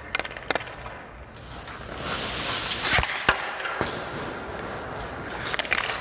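Hockey skates scraping across the ice, then two sharp cracks close together near the middle from stick and puck as a shot is taken and blocked, with lighter knocks of gear and skates around them.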